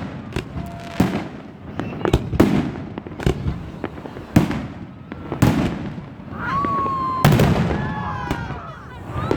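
Fireworks display: aerial shells bursting in a string of sharp bangs, about a dozen in all, with a whistling firework sounding briefly about six and a half seconds in.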